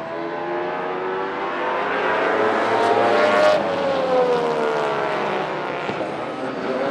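A field of Baby Grand race cars running on an oval track, the engine note climbing in pitch for about three and a half seconds and then falling away as the cars go by.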